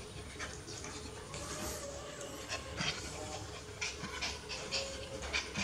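Dog panting in quick, breathy puffs, out of breath from play-fighting.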